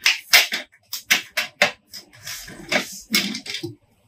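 Sheet-metal rear cover of an HP LaserJet 1005 printer being unclipped and pulled off the plastic frame: a quick run of sharp clicks and knocks, then scraping and rattling of metal against plastic for a second or so near the end.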